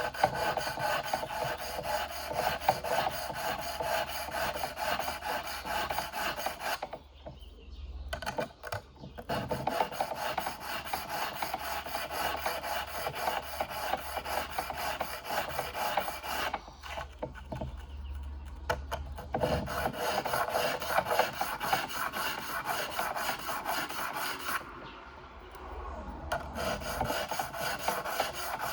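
Small abrasive sharpening stone rubbed back and forth over the steel prongs of a Salvimar 14mm pole spear's three-prong paralyzer tip, a steady scraping that stops briefly three times.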